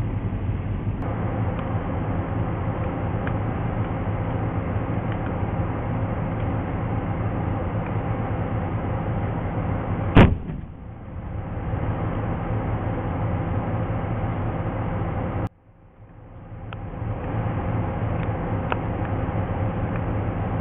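Challenger 2 main battle tank's V12 diesel engine running steadily as it drives, with one sharp blast from its 120 mm main gun about halfway through. About five seconds after the shot the sound drops out abruptly and fades back in over a second.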